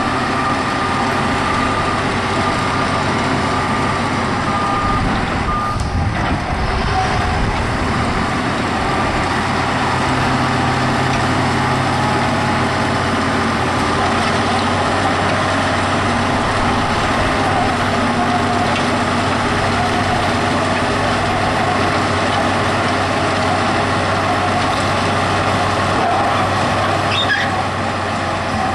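Caterpillar 815B soil compactor's diesel engine running steadily under load. Its reversing alarm beeps during the first five seconds or so, then stops.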